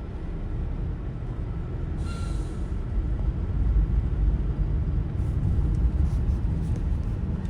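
Car driving along a highway, heard from inside the cabin: a steady low rumble of road and engine noise, with a brief hiss about two seconds in.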